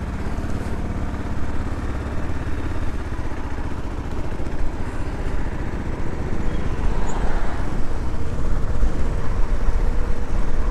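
Dual-sport motorcycle engine running under way over a dirt track, heard from the rider's seat with wind and road noise. The noise grows louder after about four seconds as the bike picks up speed.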